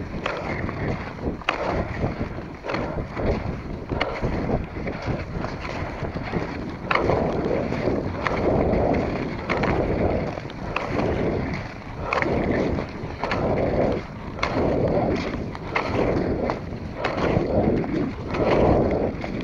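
Cross-country skis skating on a snowy track: rhythmic swishing pushes of the skis on snow, which grow louder about a third of the way in, with repeated sharp clicks of pole plants. Wind rumbles on the microphone throughout.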